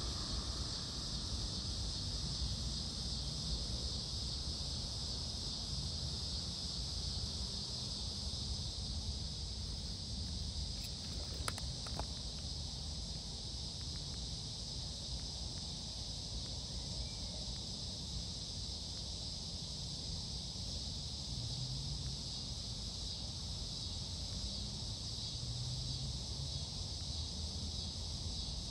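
A steady chorus of insects, an even high-pitched buzz, over a low rumble, with a couple of faint clicks about eleven seconds in.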